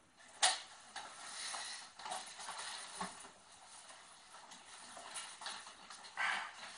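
A bottle being handled and drunk from, with faint scattered clicks and rustles, a sharp click about half a second in and a louder crinkle about six seconds in.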